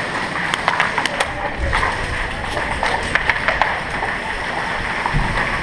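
Airsoft guns firing: many sharp, irregular snaps and clicks of shots, over a steady background hiss.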